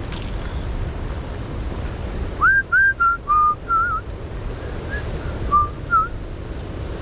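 A person whistling a short tune: about ten short notes, some sliding up or wavering, starting a couple of seconds in and stopping about a second before the end, over a steady low background rumble.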